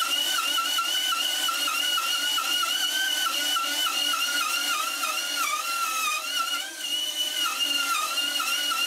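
Bandsaw cutting through a thick wooden guitar neck blank: a steady whine whose pitch keeps dipping briefly as the blade is loaded.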